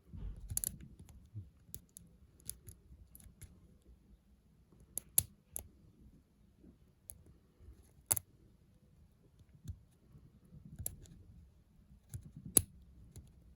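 Single-pin picking of a Papaiz padlock: small scattered metallic clicks and scrapes of the pick and tension wrench working the pin stacks, with four sharper clicks spread through it.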